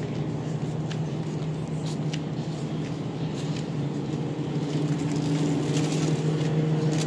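Steady low hum of supermarket refrigeration and ventilation, with scattered light clicks and rustles from the phone being carried.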